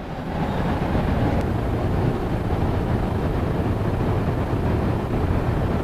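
Steady low rumble of outdoor city street noise, traffic and wind on the microphone, with no clear individual events.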